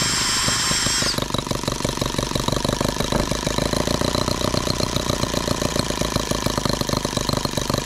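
Microcosm H76 twin-cylinder miniature engine being spun by a drill starter, the drill whining for about the first second, then the engine firing and running on its own with a rapid, even beat that sounds like both cylinders firing.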